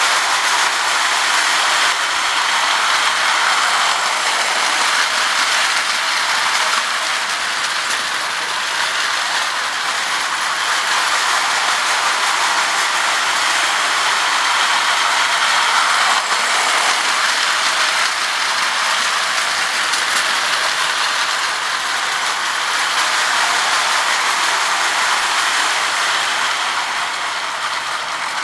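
Marx 897 prewar lithographed tinplate toy steam locomotive running with its cars on the track: a steady rattling whir of the gear mechanism and wheels. It swells and fades slightly as the train moves around the layout.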